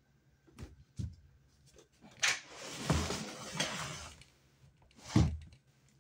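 Knocks and clacks from a wooden closet door and things being handled: a couple of light knocks, a sharp clack about two seconds in followed by a second or two of rustling and scraping, then a single thump about five seconds in.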